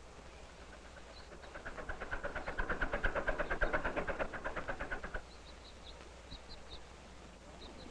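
A fast, even mechanical clatter of about six beats a second swells, then cuts off suddenly about five seconds in. A few faint, short high chirps follow.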